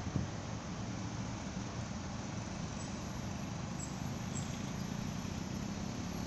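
Steady hum of dense, slow-moving road traffic on a congested expressway, with a brief low thump just after the start.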